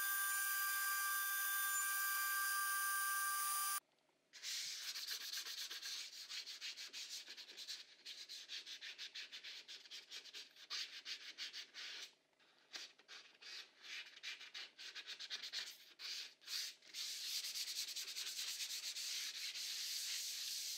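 CNC router spindle running with a steady high whine while milling a pocket in MDF; it stops suddenly about four seconds in. Then sandpaper is rubbed back and forth over the milled MDF pocket in quick, uneven strokes with a few short pauses.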